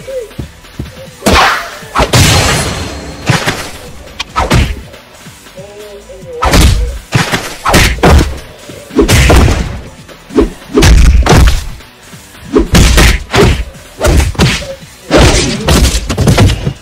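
Dubbed fight sound effects: a rapid series of a dozen or more punch and thud hits, over background music.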